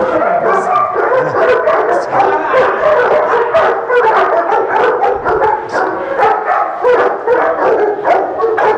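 Dogs barking over and over, two or three barks a second, the barks overlapping in an unbroken run.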